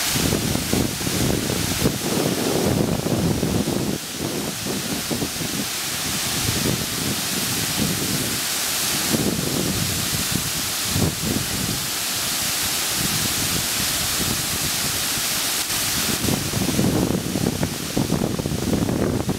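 Water spilling over the rim of a dam's bell-mouth (morning glory) spillway and dropping into its shaft, a steady rushing at a low flow. Wind buffets the microphone in gusts.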